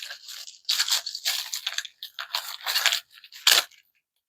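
Packaging crinkling and crackling in irregular bursts as drill bits are unwrapped, with one sharp knock about three and a half seconds in.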